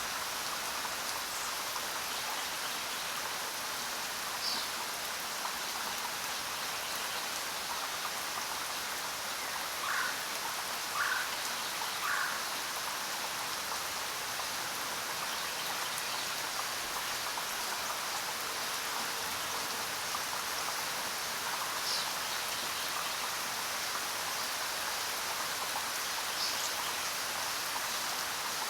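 Steady jungle rain falling, with a few short bird calls over it: brief high falling chirps now and then, and three lower calls about a second apart near the middle.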